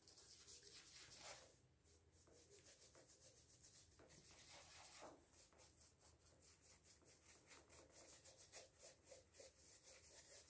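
Faint, quick rubbing strokes of a paintbrush scrubbing tempera block paint onto a sock stretched over a bottle, several strokes a second.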